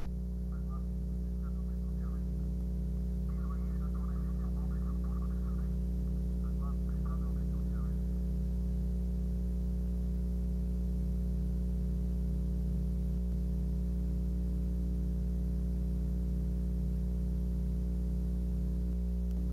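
Steady low electrical hum made of several held tones that does not change. Faint snatches of a voice come through for roughly the first eight seconds.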